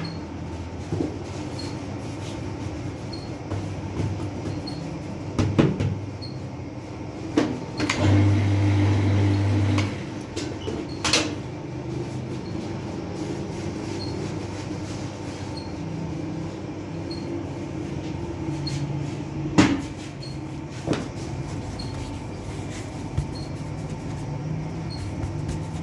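Bakery machinery running with a steady mechanical rumble and hum, which grows louder for a couple of seconds about a third of the way through. Several sharp knocks and thumps sound over it as dough is handled at the machine and counter.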